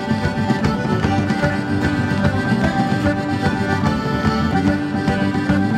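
Live band playing an Irish-style folk tune: a schwyzerörgeli (Swiss diatonic button accordion) carries the melody over electric bass, acoustic guitar and a drum kit keeping a steady beat.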